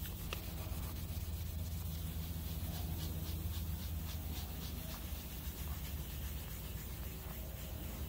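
A dark polishing pad rubbed up and down the metal bell of a steam whistle, a repeated soft scraping, over a steady low hum.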